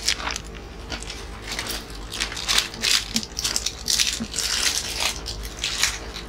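Crisp fried snacks being crunched and chewed close to the microphone, with a small plastic snack packet crinkling as it is handled and opened. The crackles are dense and irregular.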